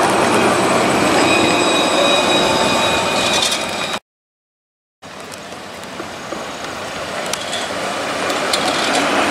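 Low-floor Alstom Citadis tram passing close by, its running noise carrying a steady high whine. After a second of silence, another tram approaches, growing steadily louder, with a few sharp clicks.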